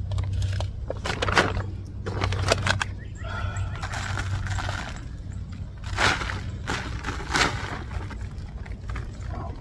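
Hands digging through loose soil in a bucket of potatoes: irregular rustling and scraping with scattered knocks as potatoes and dirt are turned over, over a steady low hum.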